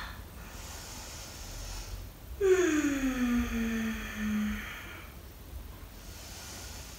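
A woman's audible yoga breathing while she holds downward-facing dog. Soft breath, then about two and a half seconds in a long, voiced, sighing exhale that falls in pitch, then soft breathing again.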